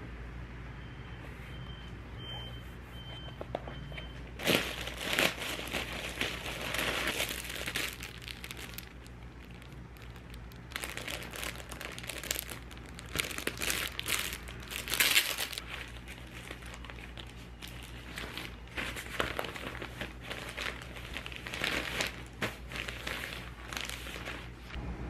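Plastic or paper packaging crinkling as it is handled, in irregular bursts from about four seconds in. Before that, a few short, faint high beeps.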